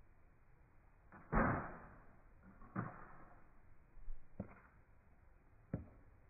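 Nerf AccuStrike AlphaHawk blaster fired four times, a sharp pop roughly every second and a half, the first the loudest.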